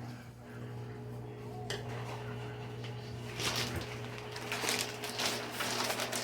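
Kitchen handling sounds: dishes and utensils clinking and scraping in a few short bursts over a steady low hum.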